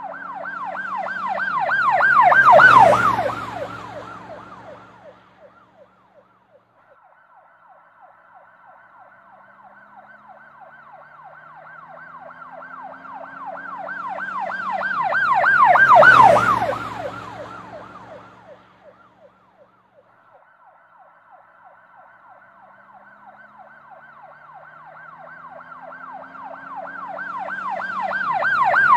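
Sound-effect recording of an emergency vehicle passing with a rapid warbling siren. It swells to a peak, drops in pitch as it goes by, then fades. The effect is looped: it passes twice, about 13 seconds apart, and is building again near the end.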